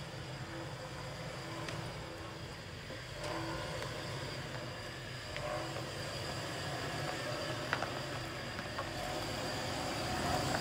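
Lifted Chevrolet Suburban's engine running low and steady as it crawls over a rocky trail, with a few small sharp clicks now and then.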